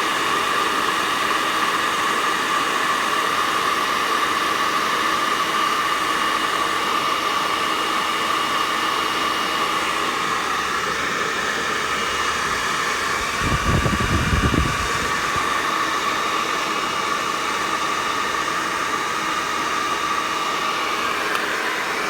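Hair dryer running steadily on its high setting, a loud rushing hiss with a steady whine. About two-thirds of the way through comes a brief low rumble.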